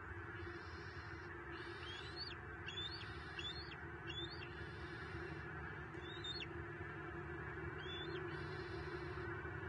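Small birds giving about six short, sharp, high calls, each sweeping up in pitch, spaced irregularly; these are mobbing calls aimed at a young bald eagle. A steady low hum and hiss lies underneath.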